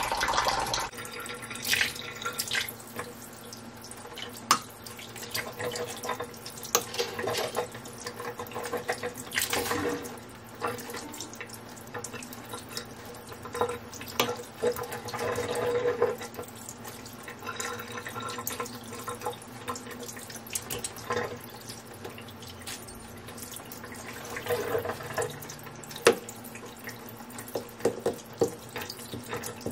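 Kitchen tap running into a stainless steel sink as raw chicken and a knife are rinsed under the stream, with splashing and scattered knocks from the handling; one sharper knock comes near the end.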